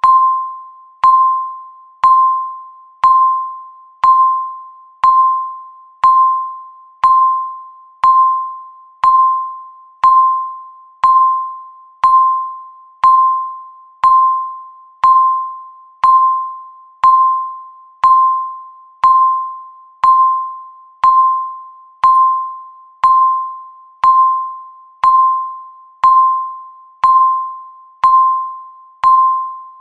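Countdown timer beep, a single mid-pitched electronic chime sounding once every second, each one struck sharply and fading away before the next.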